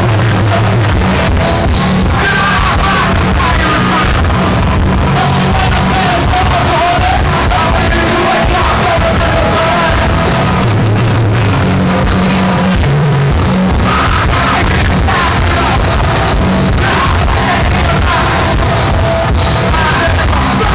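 A hardcore punk band playing live at full volume, with distorted guitars, drums and shouted vocals over the top. It is recorded loud and dense from within the crowd.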